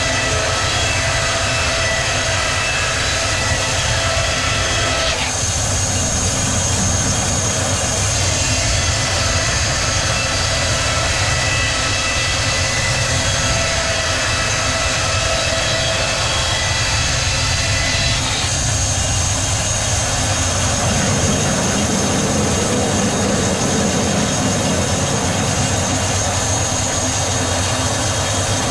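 Sawmill machinery running steadily, a loud drone with several high whining tones; the pitch and mix of the tones shift a few times.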